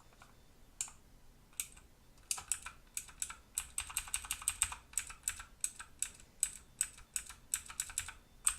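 Clicky blue switches of a Motospeed CK108 mechanical keyboard being pressed: a few single keystrokes, then from about two seconds in a fast run of key presses, densest around the middle.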